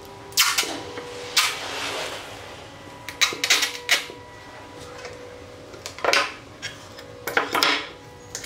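Clear packing tape being pulled from the roll and pressed down along pine boards, in about five short ripping bursts.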